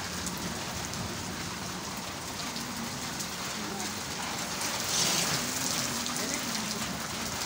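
Steady monsoon rain falling and pattering on wet concrete, briefly louder about five seconds in.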